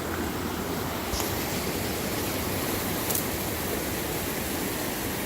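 Steady rushing of flowing water in a creek current, with a couple of faint clicks about one and three seconds in.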